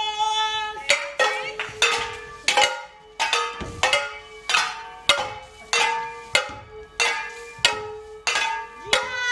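A high voice repeating short cries on one held note, each with a sharp start, about one and a half a second in an even rhythm.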